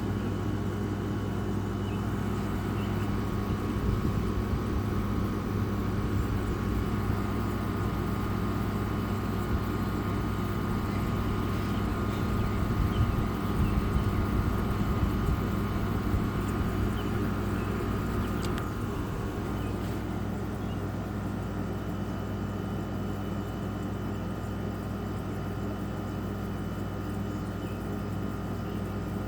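Haier 5,050 BTU R32 window air conditioner running with its compressor and fan on, a steady hum with a higher whine. A little after halfway the whine fades and the sound gets slightly quieter.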